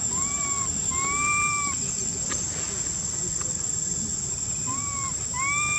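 Baby long-tailed macaque crying with short, arched, plaintive coo calls: a pair near the start and another pair near the end. These are the calls of an infant separated from its mother. A steady, high-pitched insect drone runs underneath.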